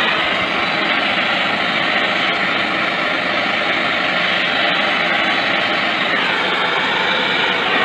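Brazing torch flame burning with a steady, loud hiss while a leak in an air conditioner's refrigerant line is brazed shut.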